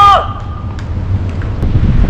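A person's brief shout at the very start, falling in pitch, then steady wind rumble on the microphone with a few faint knocks.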